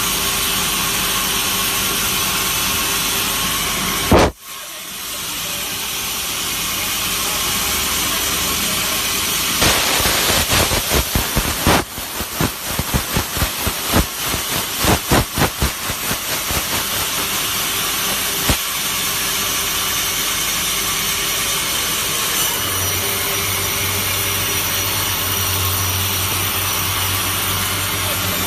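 Log sawmill machine running with a loud, steady hissing noise. It cuts out sharply about four seconds in, then builds back. From about ten to eighteen seconds there is a run of rapid, irregular knocks, and a low hum joins near the end.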